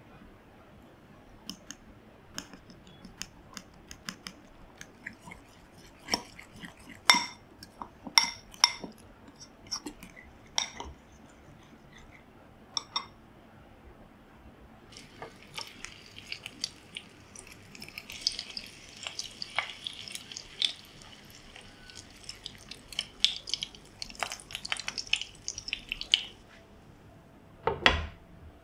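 A fork clinking against a ceramic bowl while mixing an egg and flour batter, in scattered taps at first, then in a denser run of quick scraping and clinking. Near the end a single heavier knock, a lid being set on a frying pan.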